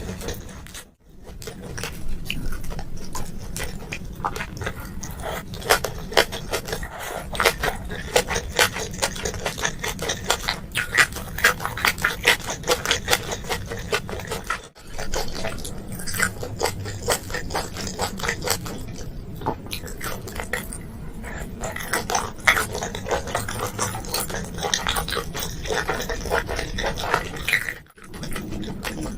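Close-miked eating sounds: a person chewing with rapid wet smacks and clicks, with three brief pauses, one about a second in, one halfway and one near the end.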